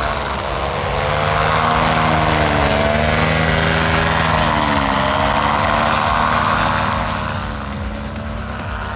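Paramotor engine and propeller running at high power during a take-off run, its pitch dipping and rising again a few times. It is loudest in the middle and eases off near the end.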